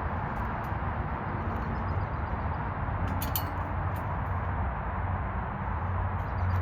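A few light clicks and clinks of shooting-bench parts being handled during assembly, over a steady low hum and hiss.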